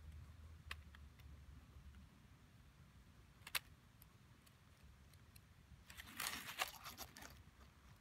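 Faint scratching and tapping of a fine-liner pen drawing on paper: a single sharp click about three and a half seconds in, then a louder burst of scratching clicks and rustling around six to seven seconds in.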